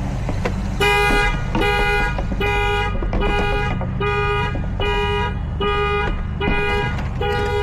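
Toyota Tundra's anti-theft alarm going off, its horn honking in a steady pulse of short blasts, about one every 0.8 seconds, starting about a second in.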